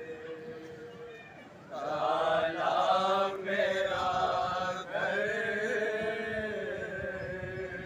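Men's voices chanting a noha, the Shia mourning lament of Muharram, led by a reciter reading from a booklet. The chant grows louder and fuller about two seconds in.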